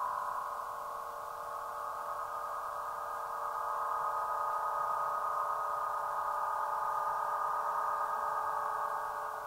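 A 104-inch Aeolian wind harp's strings sounding in the wind: a sustained, organ-like chord of many overlapping steady tones. It swells louder about a third of the way in and eases slightly near the end.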